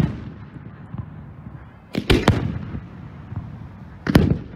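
Aerial firework shells bursting: a sharp bang right at the start, a quick cluster of two or three bangs about two seconds in, and another bang near the end, each trailing off in a low rumbling echo.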